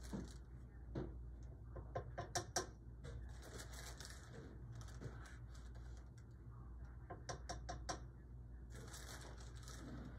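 A measuring spoon tapping in quick runs of light clicks as tablespoons of cornstarch are scooped into a saucepan: one run about two seconds in and another of four clicks about seven seconds in, over a low steady hum.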